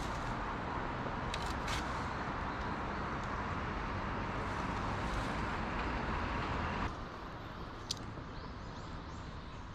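Steady rushing outdoor noise of wind and distant road traffic, with a few light clicks; the noise drops suddenly to a lower level about seven seconds in.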